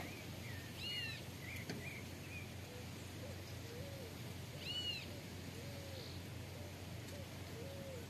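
Wild birds calling faintly: a high, arching double chirp twice, about four seconds apart, with a few small chirps and a string of soft, low hooting notes over a faint steady low hum.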